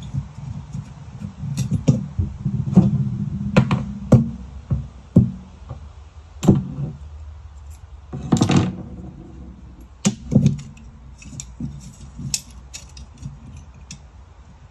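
Scattered clinks and knocks of small metal pieces being handled, with a half-second scrape about eight seconds in.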